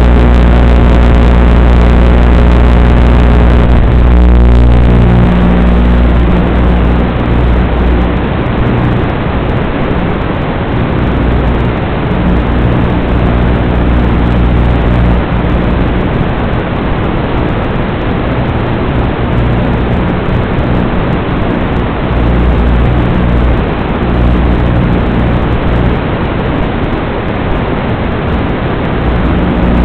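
5-inch FPV racing quadcopter in flight: its motors and propellers hold a few steady tones for the first five or six seconds, then give way to a rough rushing noise of props and wind that swells and dips as it manoeuvres.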